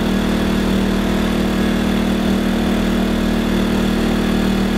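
WEN 2000-watt inverter generator's small gasoline engine running steadily under a light electrical load, an even hum with a strong low tone.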